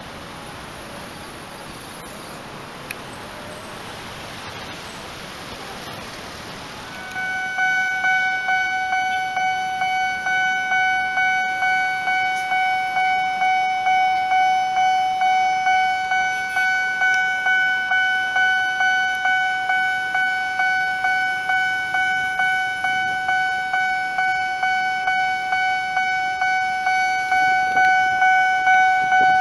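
Railway level-crossing warning bell starting about 7 s in over light street traffic, ringing a steady ding-ding at a little under two strikes a second: the signal that a train is approaching and the barrier is coming down.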